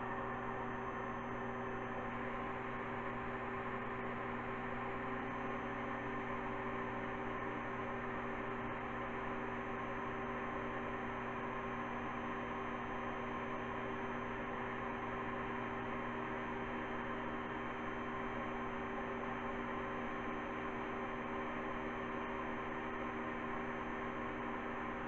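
Household vacuum cleaner running steadily, its airflow spinning the two blade rows of a 3D-printed propfan engine model: an even hum with several held tones.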